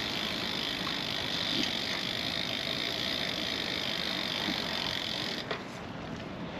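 Steady hiss of riding a Brompton P-Line folding bike, its tyres and motion noise with no clear ticks, dropping away about five and a half seconds in.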